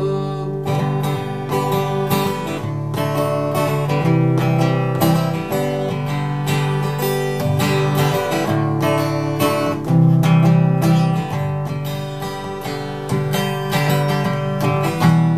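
Instrumental break on an Epiphone Masterbilt DR-500 acoustic guitar, strummed steadily in a country rhythm, with no singing.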